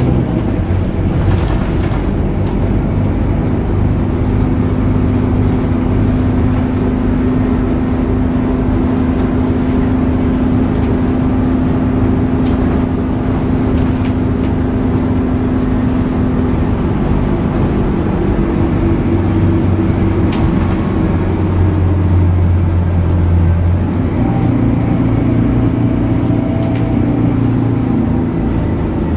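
Scania DC9 nine-litre six-cylinder diesel engine of a Scania K94UB city bus running under way, heard inside the passenger cabin as a steady hum with road noise. Its note shifts a couple of times in the second half.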